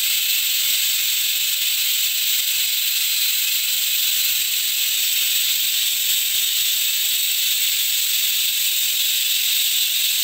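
Beef intestine pieces deep-frying in hot oil in a wide pan, a steady sizzle that holds even throughout.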